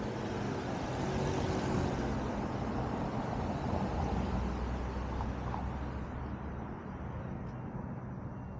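Steady motor-vehicle rumble with a low hum, easing off slightly toward the end.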